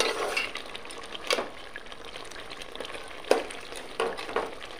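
Fish head sizzling as it fries in spiced masala in a pot, at the kosha stage of slow browning. A metal spatula scrapes against the pot about five times as it is stirred.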